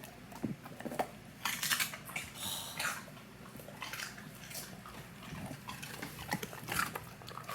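Dog chewing a piece of raw celery: irregular, crisp crunches, thickest in the first three seconds and then sparser, slower bites.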